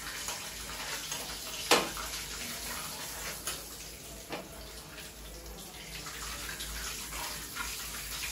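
Hot oil sizzling steadily in a kadai during deep-frying, with sharp clinks of a metal spoon against the pan. The loudest clink comes a little under two seconds in, with smaller ones around three and a half and four seconds.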